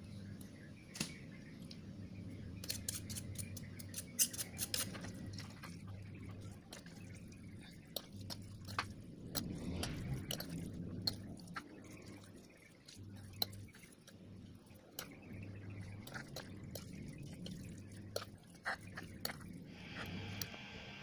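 Cheese being grated onto a glass plate of spaghetti, then a fork clinking and scraping against the plate as the spaghetti is stirred: many sharp clicks and light taps over a low steady hum.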